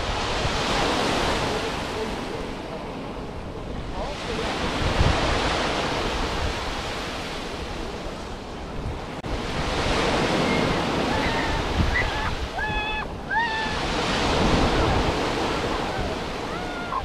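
Mediterranean surf washing onto a sandy beach, swelling and easing every few seconds, with wind rumbling on the microphone.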